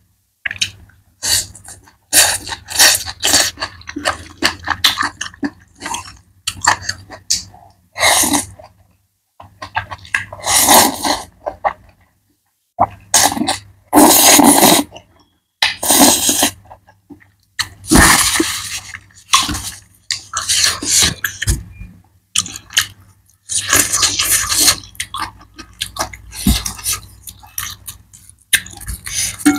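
Close-miked eating of black noodles and boiled mustard greens: wet slurps and chewing come in loud bursts with short pauses. A few sharp clicks near the end, chopsticks and a spoon against a plate.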